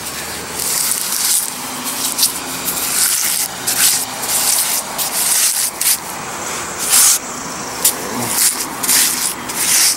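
A rubber-gloved hand rubbing and smearing wet Rapid Set mortar into the rough face of a concrete chimney block, with a trowel also scraping across it: a run of irregular gritty scraping strokes.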